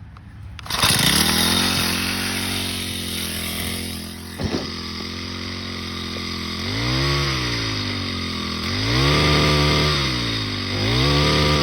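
Craftsman four-stroke small engine catching about a second in and running with no oil in the crankcase, its speed hunting up and down several times in the second half. A single sharp click about four and a half seconds in.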